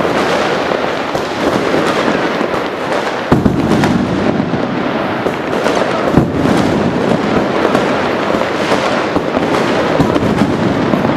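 Fireworks going off continuously: a dense crackling and popping, with two heavier booms about three and six seconds in.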